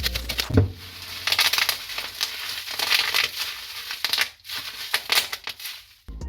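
Product packaging being handled and opened by hand, with irregular crinkling and crackling that stops abruptly near the end.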